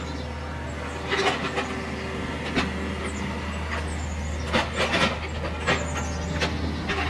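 Kubota KX91-2 mini excavator's diesel engine running steadily under hydraulic load. The bucket scrapes and clatters against pit gravel several times as the excavator spreads it.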